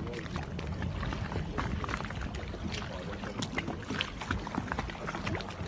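Water slapping and splashing against a small boat's hull at sea, with scattered short splashes over a steady low rumble and wind on the microphone.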